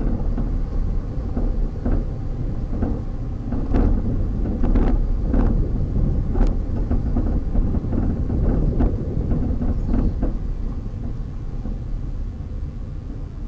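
Low, steady rumble of a vehicle driving along a road, with irregular knocks and thumps every second or so that ease off near the end.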